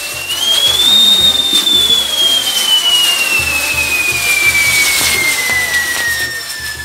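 Firework whistle: one long whistle that rises briefly in the first second, then slowly falls in pitch, over the hiss and scattered crackles of an aerial firework burst.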